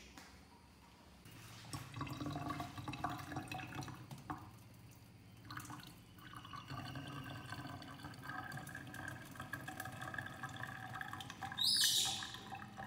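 Water trickling and dripping, with a few light knocks, and a short, loud, high-pitched burst near the end.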